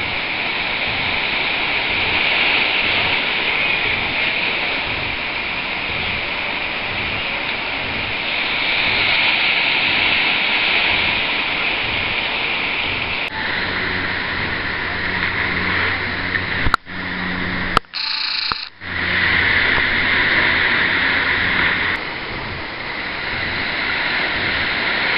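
Ocean surf washing and breaking in a steady rush that swells and eases. A low hum sits under it for several seconds past the middle, and the sound cuts out abruptly a few times around the same point.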